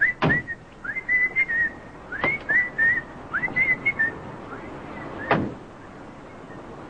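A man whistling a short tune, each phrase swooping up into a warbling held note, for about four seconds before it fades. A few thumps sound among it, the loudest about five seconds in.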